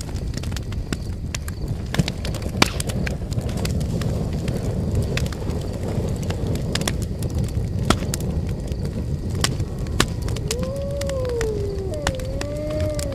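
Campfire crackling: a steady low rumble of burning with scattered sharp pops and cracks. From about ten seconds in, a few long wavering tones glide up and down over it.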